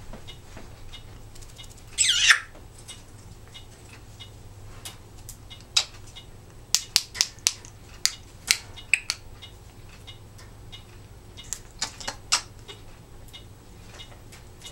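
Timneh African grey parrot gives one short harsh squawk about two seconds in. Later comes a run of sharp clicks and taps, clustered in two groups.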